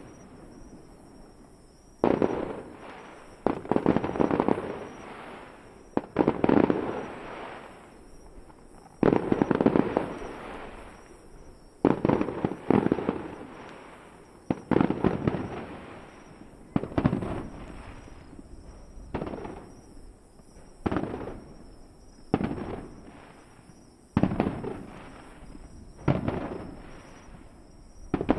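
Aerial firework shells bursting one after another, a sudden boom every one to three seconds, each trailing off over a second or so.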